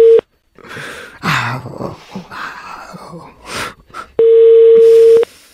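Italian telephone ringback tone: a steady single tone, on for about a second at the start and again about four seconds later near the end, while the outgoing call rings at the other end. In the gap between rings, a man grunts and groans.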